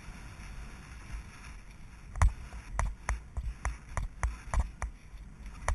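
A horse cantering across grass, heard from the rider's seat: steady wind rush on the microphone, then from about two seconds in a run of sharp knocks from its stride, roughly three a second.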